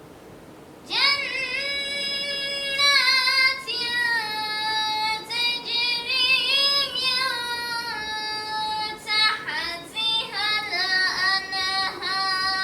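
A child singing solo in a high voice, with long held notes that waver and quick ornamented turns between them, starting about a second in.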